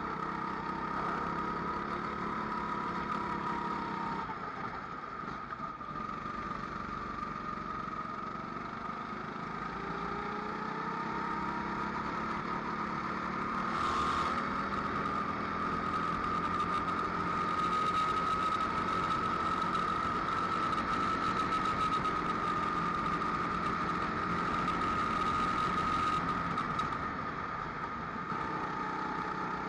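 Rental go-kart engine running at race pace on track, its pitch rising and falling with throttle and speed through the corners, with a brief rush of noise about halfway through.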